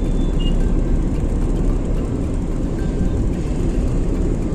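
Steady low rumble of a car driving in slow traffic, heard from inside the cabin: engine and tyre noise.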